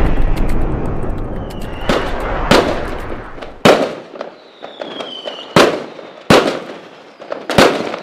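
Aerial fireworks going off: a dense crackle of bursting shells for the first few seconds, then five sharp, loud bangs through the rest, with a few short whistles falling in pitch in between.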